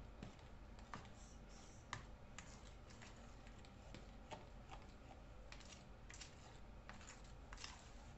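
Faint, irregular clicks and scrapes of a spoon stirring thick banana bread batter in a bowl, over a low steady background hum.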